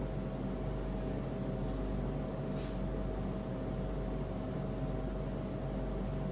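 Steady mechanical hum with a constant mid-pitched tone, unchanging throughout, and a brief soft hiss about two and a half seconds in.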